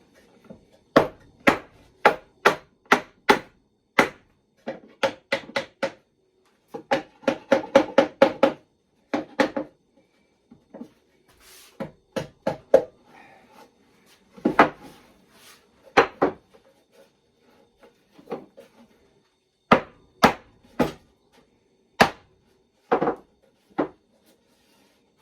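Pneumatic staple gun driving 1-inch staples into a half-inch plywood nuc box, a string of sharp shots often about two a second, with a quick run of them in the middle.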